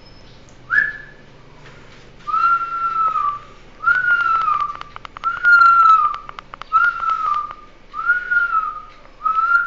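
Whistling in a string of about seven separate notes. The first is short and sweeps up; the rest are each about a second long, held on one pitch and dropping slightly at the end. Fast clicks run through the notes.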